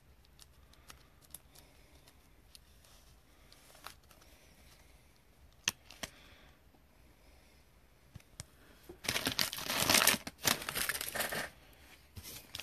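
Light plastic clicks and taps of a trading card being handled in a clear plastic sleeve and holder, with two sharper clicks about six seconds in. About nine seconds in comes a loud crinkling of a foil card-pack wrapper, lasting two to three seconds.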